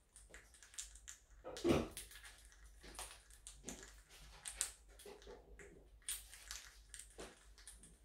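Blue Quaker parrots crunching and nibbling corn flakes with their beaks: a run of irregular small crackles and clicks, with one louder knock near two seconds in.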